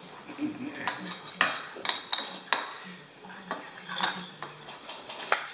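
Metal spoons scraping and clinking against small glass baby-food jars as two people scoop and eat from them, in an irregular string of short clinks.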